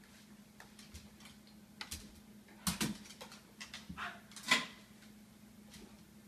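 Beagle's claws clicking and tapping on a hardwood floor as it prances and jumps, soft scattered clicks with a few louder taps a little under three seconds in and again around four and a half seconds. A faint steady low hum runs underneath.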